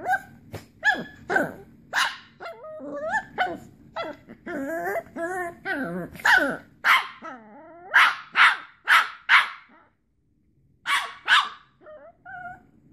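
Two small dogs play-fighting, giving sharp yapping barks mixed with wavering growls. The barks come in quick runs, stop briefly near the end, then start again with a couple more.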